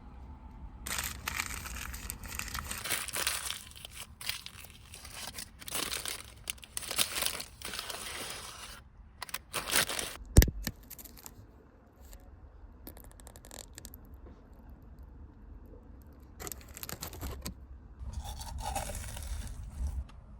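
Repeated crinkling and tearing sounds of something being handled, in several spells, with a single sharp click about ten seconds in.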